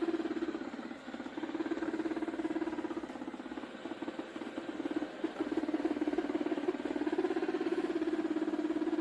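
Robot vacuum cleaner running: a steady, low motor hum with a fast fine pulse, which dips in level briefly about a second in and again around the middle.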